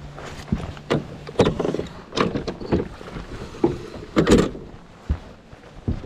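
Footsteps, knocks and clunks on an aluminium boat's deck and fittings, several sharp thumps with the loudest about a second and a half in and again past four seconds. A short low hum runs through the first second or so.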